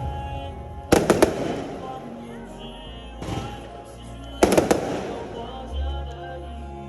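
Aerial fireworks bursting: a quick cluster of sharp bangs about a second in and another about four and a half seconds in, with a weaker burst between, over music with a steady low bass.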